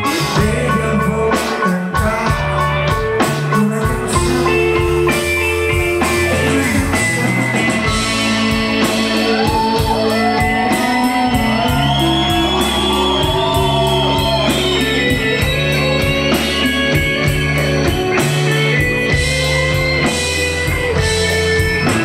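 A live Brazilian pop (MPB) band playing: guitar, bass, keyboards and drums with a steady beat. A wavering lead melody rises over the band in the middle.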